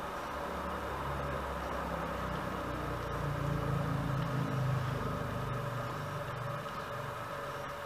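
Low engine rumble with a steady hum over it, growing louder about three seconds in and easing off near the end.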